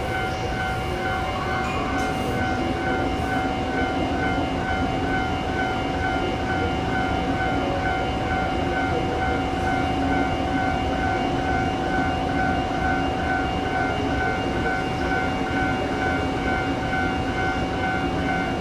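Electric train standing at the platform, its onboard equipment giving a steady hum with several held tones, while a repeating beep sounds about two to three times a second, fading out about halfway through.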